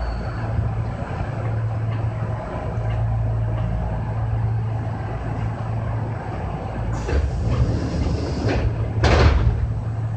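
Kintetsu 6020 series electric train running, heard from the cab: a steady low running hum, with two short rushing, hissing bursts near the end.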